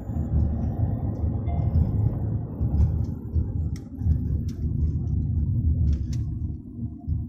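Inside a moving car's cabin: a steady low rumble of engine and tyre road noise while driving, with a few faint clicks.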